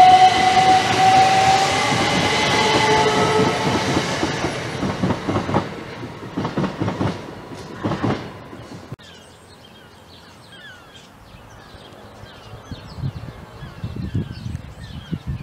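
Southern passenger train running past the platform and away: a rising whine over the rumble of the wheels, then rhythmic clacking of wheels over rail joints as the last coaches go by, fading out about nine seconds in. Birds chirp faintly once the train has gone.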